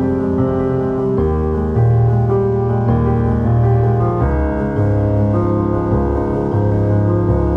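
Background piano music: slow, sustained chords that change every second or so.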